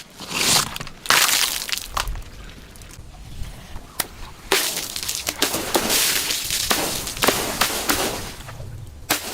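Glass bottles breaking and being crushed: repeated sharp cracks and crashes with stretches of grinding, crunching glass, loudest a little after the start and again in the middle.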